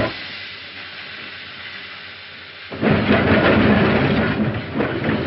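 Steam locomotive running, a heavy rumbling roar on a narrow-band 1930s film soundtrack. It drops suddenly to a quieter hiss for the first few seconds, then comes back loud about three seconds in.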